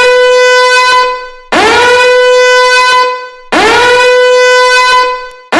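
Fire alarm sounding: a loud, horn-like tone that repeats about every two seconds. Each blast swoops up quickly in pitch, then holds steady.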